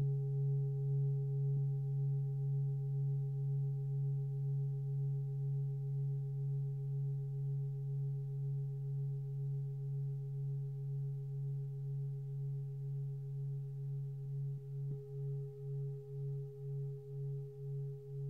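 A 27.5 cm lingam singing bowl ringing with a deep, steady tone that pulses evenly, the rhythmic beating typical of a lingam bowl, with fainter higher overtones above. About three-quarters of the way through, a light touch renews the higher tones and the pulsing becomes deeper, at about one and a half pulses a second.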